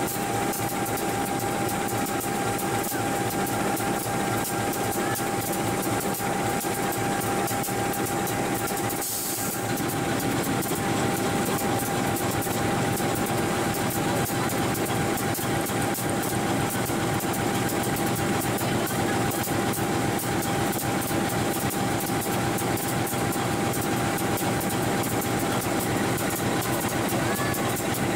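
Train of ballast hopper wagons rolling slowly along the track, dropping crushed-stone ballast from their bottom doors. The rumble of the wagons and the pouring gravel stays steady, with a constant hum running through it.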